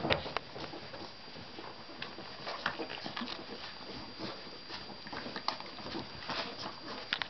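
Puppies suckling from their mother, making irregular wet smacking and clicking sounds as they nurse.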